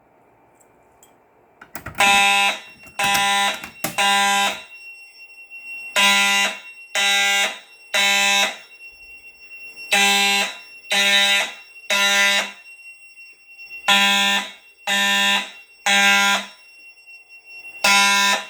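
Fire alarm horns sounding the temporal-3 evacuation pattern, starting about two seconds in: three half-second horn blasts about a second apart, then a pause, with the group repeating every four seconds.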